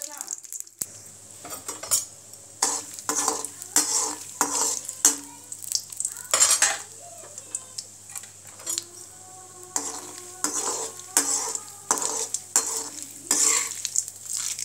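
Hot fat sizzling in a stainless steel kadai during the tempering for upma, with irregular sharp clicks and pops throughout. Near the end a metal spatula stirs lentils in the pan, scraping and clinking on the steel.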